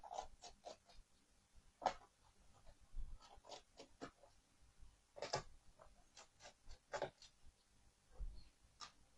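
Faint, irregular light clicks and taps of a laptop being handled and used, a dozen or so single strokes with short gaps between them.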